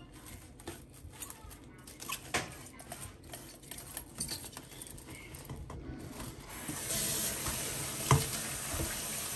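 Plastic cling film crinkling and rustling as it is pulled off the roll and stretched over a stainless-steel mixing bowl, in a run of small irregular crackles. About seven seconds in, a steady hiss of running tap water sets in.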